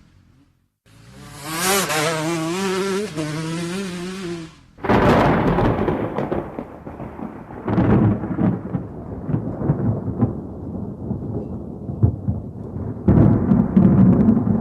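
A droning, machine-like sound with a wavering pitch plays for about four seconds, then stops. About five seconds in, thunder cracks and rumbles on in repeated rolls.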